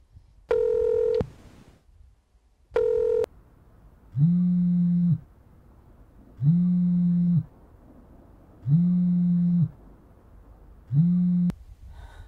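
An outgoing phone call ringing: two ringback tones, then a smartphone on a countertop buzzing four times on an incoming call, each buzz about a second long and about two seconds apart. The last buzz cuts off short.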